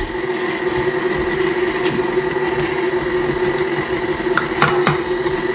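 KitchenAid Classic stand mixer running with a steady motor hum as its beater works chopped walnuts into thick quick-bread batter, with a couple of light clicks near the end.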